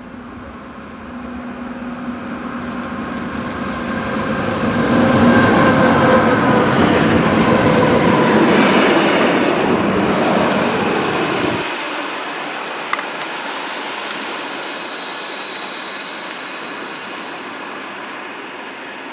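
A diesel locomotive approaches and passes close by, its engine and wheel noise swelling to a loud peak and then cutting off suddenly. A second diesel locomotive, a red class 107, follows more quietly as it rolls in, with a brief high squeal about two thirds of the way through.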